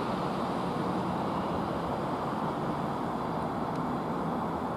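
A train moving through the station, a steady rumble of wheels and running gear with no change in level.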